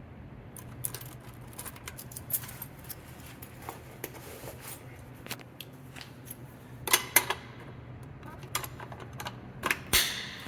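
Irregular clicks and keys jangling, with a few louder knocks about seven and ten seconds in: a fire alarm manual pull station being handled and reset with its key, over a low steady hum.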